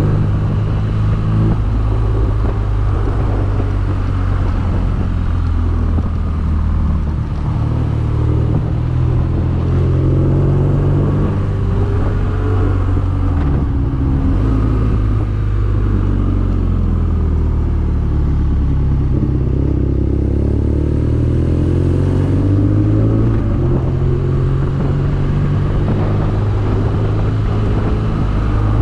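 BMW R nineT's air/oil-cooled boxer twin running under way, its pitch rising and falling repeatedly with the throttle, over steady wind and road noise.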